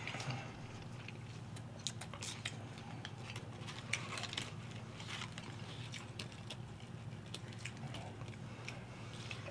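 Two people chewing chicken nuggets, with scattered small mouth clicks and smacks over a steady low hum.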